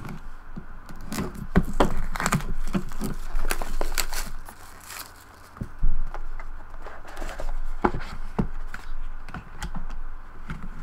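Hands opening a trading-card box and unwrapping its contents: plastic wrap crinkling and tearing, with irregular clicks, knocks and scrapes as the box and cards are handled.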